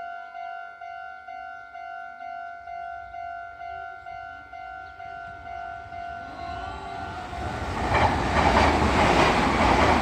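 Japanese level-crossing bell clanging steadily, about two strokes a second. From about six seconds in, a Meitetsu train approaches and passes, its noise rising until it drowns the bell, with rapid wheel clatter over the rail joints near the end.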